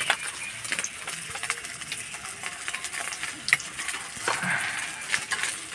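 Scattered sharp metallic clinks and scrapes of a steel spatula against a plate and an iron kadai, the sharpest about three and a half seconds in, over a faint steady sizzle of rice tikkas frying in oil.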